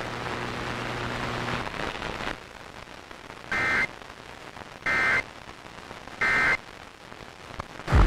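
Emergency Alert System end-of-message signal on FM radio: three short two-tone digital data bursts of the SAME code, about 1.3 seconds apart, marking the end of the alert. Radio hiss with a low hum lies underneath, the hum dropping out a couple of seconds in.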